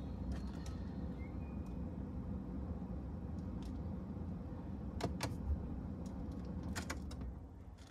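Sharp plastic clicks and taps of hands handling the car's interior trim, a couple about five seconds in and another pair near the end, over a steady low hum.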